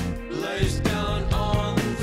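Background music: a song with a steady drum beat and a sung melody.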